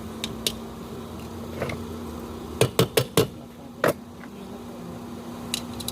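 Metal knocks from handling pressure cooker parts: four quick knocks about two and a half seconds in and one more a second later, with a few lighter clicks, over a steady low hum.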